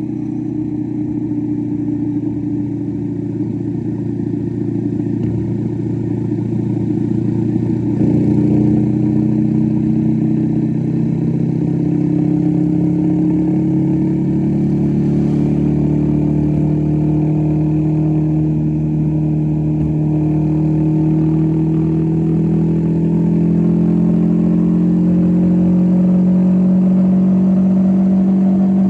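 Motorcycle engine running under way, heard from the rider's seat; its note rises steadily as the bike gathers speed, with a step up in loudness about eight seconds in.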